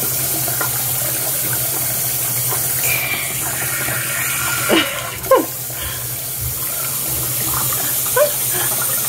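Bathroom sink tap running steadily into the basin while a face is washed. A few short squeaky sounds cut through it around the middle and again near the end.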